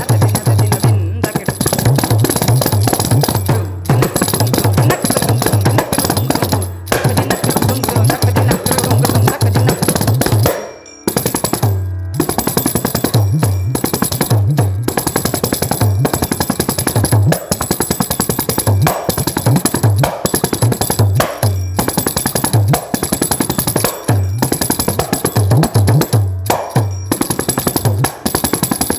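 Kanjira, the South Indian frame drum with a single pair of jingles, played solo in a fast, continuous Carnatic percussion pattern. Dense finger strokes and jingle rattle mix with deep, pitch-bent bass strokes, with a short pause about eleven seconds in.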